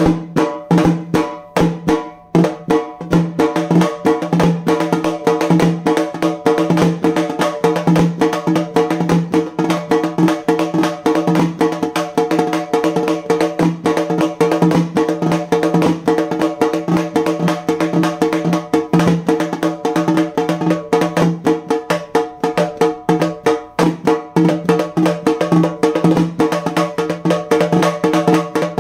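Halgi, a Maharashtrian frame drum, beaten with two sticks in a fast, continuous rhythm. Its taut head rings at a steady pitch under the dense strikes, with a brief lull about two seconds in.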